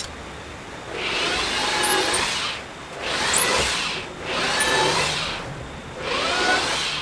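A power tool working wood, its noise swelling and fading four times, each swell lasting about a second.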